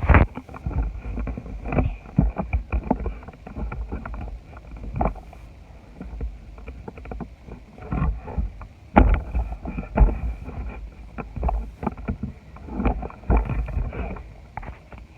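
Crunchy slime with Nerds candy mixed in, squished and worked by hand: irregular crackles and pops with wet squelches.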